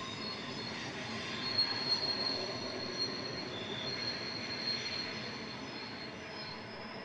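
Wagons of a long freight train rolling past on the curving spiral track, their wheel flanges squealing: high drawn-out squeals that rise and fade over a steady rolling noise, with a few light knocks a couple of seconds in.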